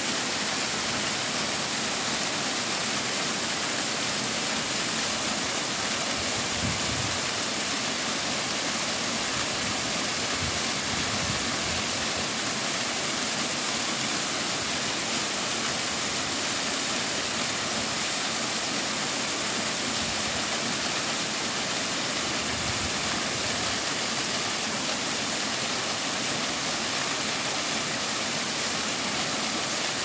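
Waterfall: a steady, unbroken rush of water falling down a rock face and splashing at its foot, with a strong high hiss.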